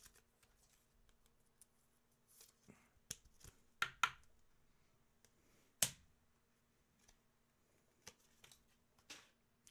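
Trading cards being handled in clear plastic sleeves and top loaders: a few soft clicks and rustles, the sharpest about six seconds in, with near silence between them.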